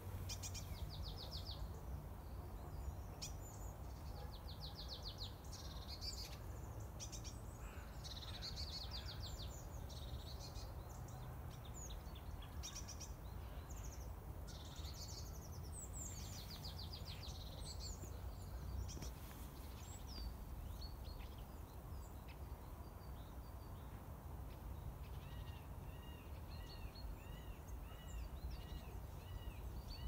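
Forest songbirds singing: rapid high trills through the first two thirds, then near the end a steady series of repeated arched notes, about one and a half a second. A steady low rumble runs underneath.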